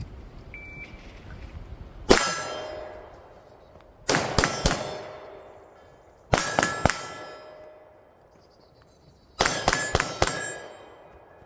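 Pistol shots fired in four bursts: a single shot, then quick strings of several. Each burst is followed by steel targets ringing as they are hit, and there are pauses of about two seconds between bursts.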